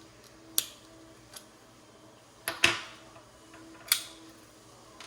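Three sharp plastic clicks spread over a few seconds, the middle one the loudest, as the parts of an old HP mouse are handled and pulled apart.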